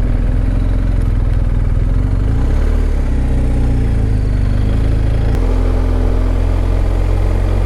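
BMW R 1250 GS Adventure's boxer-twin engine running at low road speed, its note shifting a couple of seconds in and changing abruptly about five seconds in.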